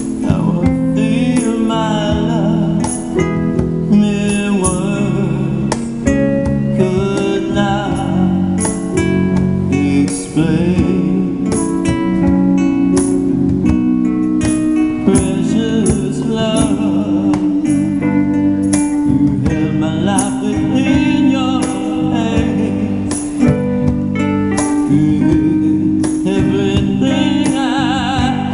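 Acoustic guitar strummed in a steady rhythm while a man sings a song into a microphone.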